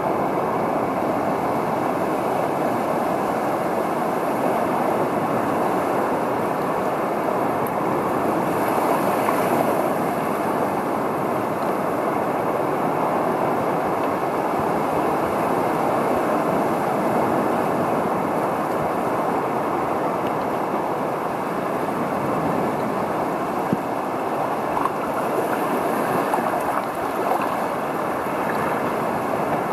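Steady, muffled rush of moving water heard through a submerged camera's waterproof housing.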